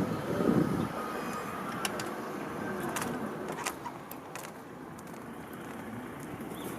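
The tail end of a Seibu Ikebukuro Line train going over the level crossing: its last wheels clatter on the track for about a second, then the train's sound dies away into steady street noise with a few light clicks.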